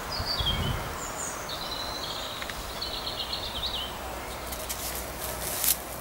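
A songbird singing in short, high chirping phrases with quick falling notes and a trill, over outdoor ambience. Near the end come a few sharp crackles and a brief knock, like twigs snapping underfoot.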